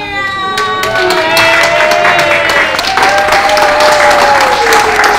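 Group of people applauding, dense clapping starting about a second in, with a few voices holding long drawn-out notes that slide slowly downward over the clapping.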